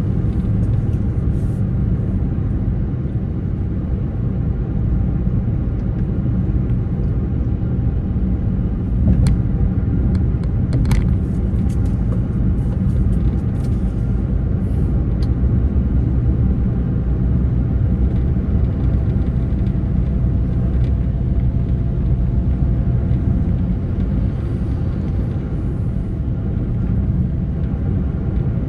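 Vehicle engine and road noise while driving: a steady low rumble with faint engine tones, and a few brief sharp ticks about a third of the way in.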